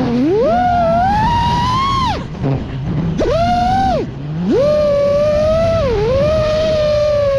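FPV freestyle quadcopter's brushless motors whining, the pitch sliding up and down with the throttle. Twice the throttle drops to a low hum, about 2 s in and again about 4 s in, then punches back up. Near the end the whine holds steadier.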